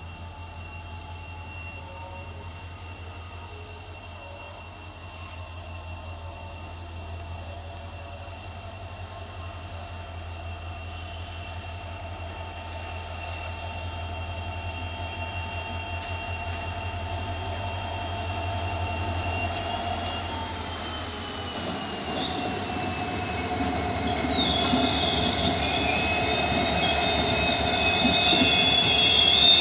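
WDP-4 diesel locomotive hauling a passenger train, its 16-cylinder two-stroke engine giving a steady low drone under several high whining tones. About twenty seconds in the high tones drop in pitch. Then the rumble of the train rolling past and a wavering wheel squeal grow louder toward the end.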